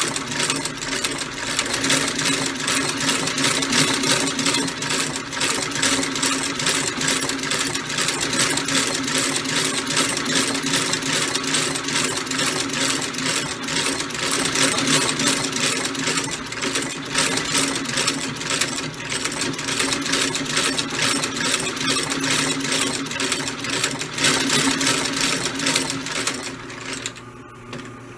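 Cobbler's outsole stitching machine running, a rapid even clatter over a steady hum as it stitches a new leather sole onto a shoe; it stops near the end.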